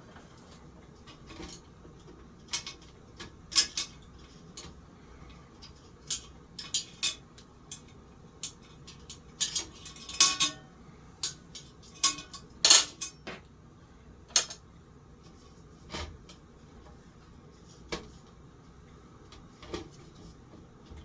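Irregular metallic clinks and clacks of tools and metal fan parts being handled and set down while a ceiling fan is taken apart, a sharp click every second or so.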